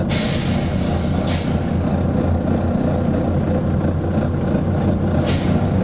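Volvo B9TL bus's air system hissing in bursts over its steady running diesel engine: a loud hiss at the start that fades over about a second, a short one about a second and a half in, and another near the end.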